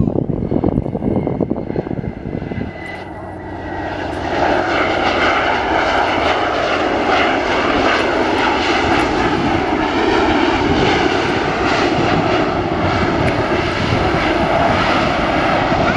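Jet engines of a Bombardier CRJ regional jet during its landing rollout: a steady roar with a thin whine that falls slightly in pitch, then about four seconds in the roar swells and stays loud.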